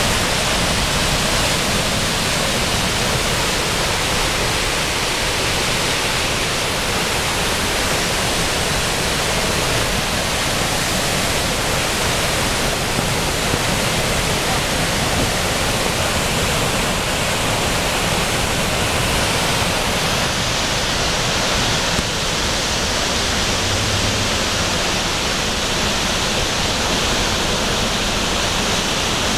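A brook in flood, over its banks from hurricane rain, its water rushing steadily and loudly.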